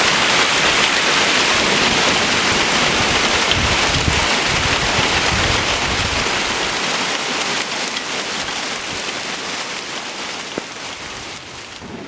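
Heavy rain pouring down on the ground and surfaces, a dense steady hiss that gradually fades away over the second half.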